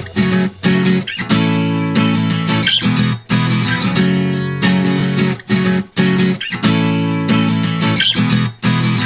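Background music: a strummed acoustic guitar playing chords, changing chord about every second.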